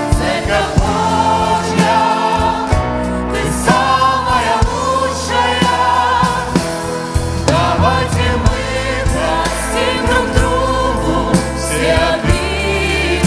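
Live worship music: a band playing with a beat while several voices sing together.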